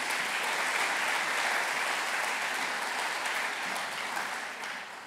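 Audience applauding in a hall, a steady spell of clapping that fades near the end.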